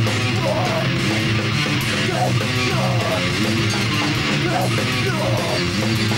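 A live heavy band playing loud: a distorted electric guitar riff over bass and a drum kit.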